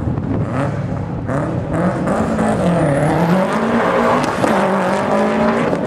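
2006 Subaru Impreza WRX STI's turbocharged 2.5-litre flat-four accelerating hard at full throttle, the revs climbing and dropping back at a gear change near the middle and again at the end.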